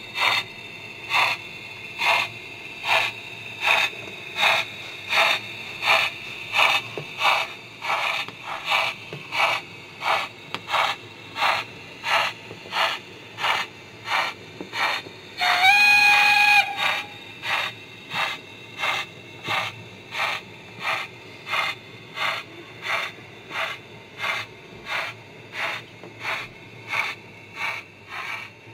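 Model steam locomotive sound from an O gauge tank engine's DCC sound decoder: a steady rhythm of exhaust chuffs, a little over one a second and slowly quickening. About halfway through a loud steam whistle sounds for about a second, sliding up in pitch and then holding.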